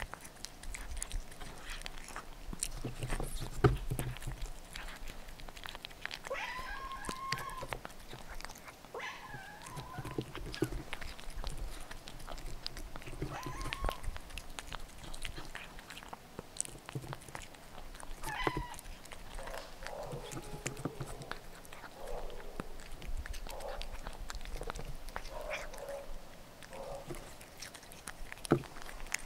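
Calico cat eating cooked fish flakes off a tray: many small wet clicks and smacks of chewing, biting and licking.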